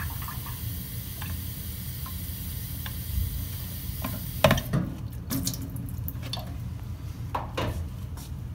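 Tap water running onto a wet sharpening stone in a stainless-steel sink, with a few light clicks of the straight razor on the stone. The water shuts off abruptly about halfway through, followed by several sharp knocks and clunks in the metal sink.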